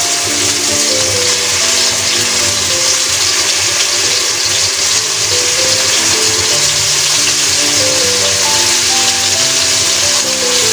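Chicken pieces sizzling in hot oil in a wok, a steady hiss, under background music with a simple melody that steps from note to note.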